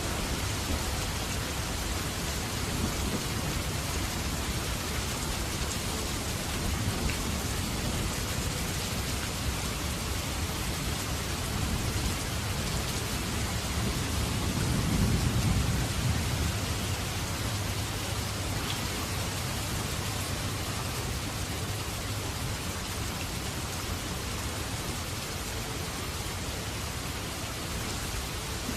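Steady, heavy rain falling, with a low roll of thunder swelling about halfway through.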